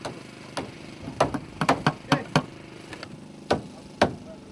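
Hammer blows on wooden formwork boards: about ten sharp knocks at irregular spacing, some in quick pairs, over a steady low engine hum.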